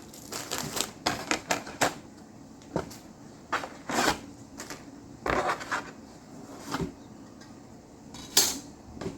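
Plastic model kit parts and packaging being handled: irregular light clicks and clatters with a few brief rustles.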